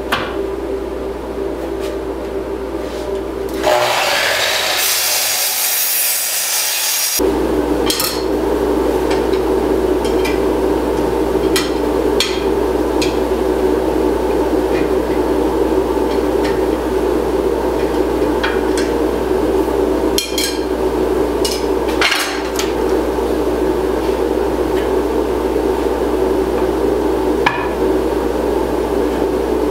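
Woodworking machinery running with a steady hum, with scattered clicks and knocks of boards and tools being handled. About four seconds in, a hissing rush takes over for some three seconds before the hum returns.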